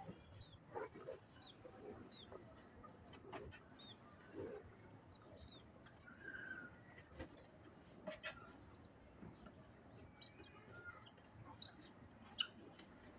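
Faint, scattered bird calls: short high chirps every second or so, with a few lower calls and occasional sharp clicks.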